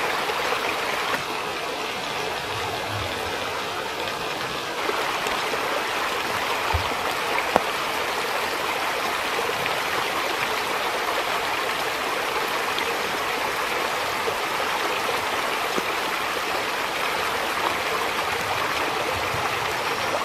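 Shallow stream running over a stony riverbed: a steady rush of water with no break. It dips slightly in level between about one and five seconds in, and there are two small knocks around seven seconds in.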